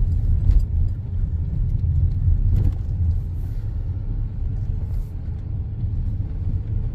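Inside the cab of a GMC Duramax diesel pickup at low road speed: a steady low rumble of engine and tyres on a wet road, with a few faint clicks.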